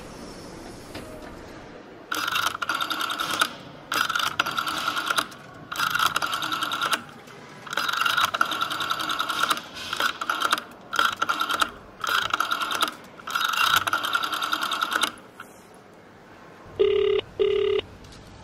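Telephone bell ringing in irregular bursts of about a second each, for over ten seconds. After a pause, a short electronic double ring, the British 'brr-brr' telephone ring.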